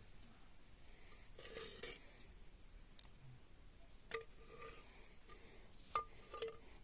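Faint clinks of a metal ladle against a cooking pot and a steel bowl as curry is ladled out, with a few short sharp taps about four and six seconds in and a soft wet rustle near two seconds.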